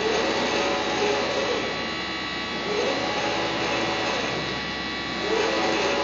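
Flatbed UV printer running: a steady machine hum, with a motor whine that rises and falls in pitch about every two and a half seconds as the print carriage sweeps back and forth across the bed.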